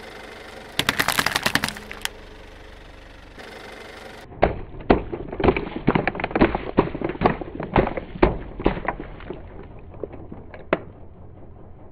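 Small plastic drink bottles with foil lids bursting under a car tyre as it rolls over them. A quick crackle of cracks comes about a second in, then from about four seconds a string of more than a dozen sharp pops, one after another, fading out near the end.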